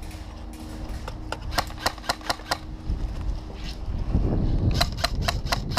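Airsoft guns firing single shots as sharp cracks. They come scattered through the first half, then about five follow in quick succession near the end, over a low rumble.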